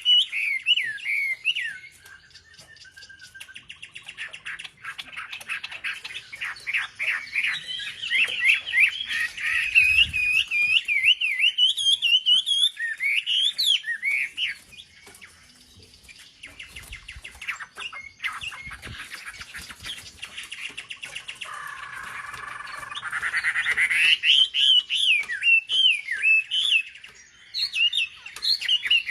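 Wambi songbird singing long, fast runs of sharp, pitch-bending chirps and trills, broken by a few short quieter spells and a lower buzzy passage about two-thirds of the way in. This is a lure call meant to rile up other wambi birds.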